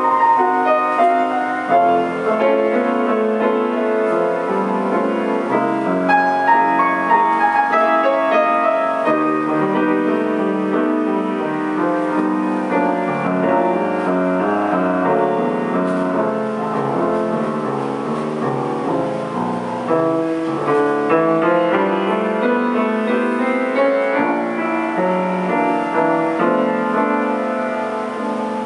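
Grand piano played solo: a continuous piece of many changing notes and chords that never pauses.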